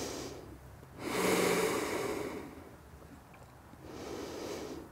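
A woman's slow, deep breaths, heard as soft rushing swells: the strongest about a second in, another near the end.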